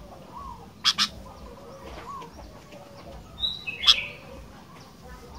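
Sooty-headed bulbul (kutilang) calling: a quick pair of sharp calls about a second in and a louder call a little before four seconds, with faint soft arched notes between them.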